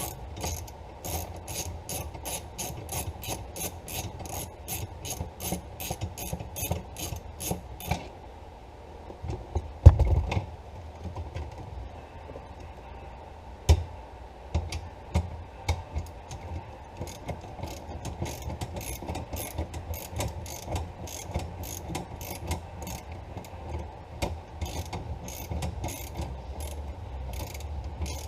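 Hand socket ratchet clicking in quick, even strokes, about three clicks a second, as a nut or bolt is wound out. The ratcheting pauses for a while, with a loud knock about ten seconds in and a smaller one a few seconds later, then resumes.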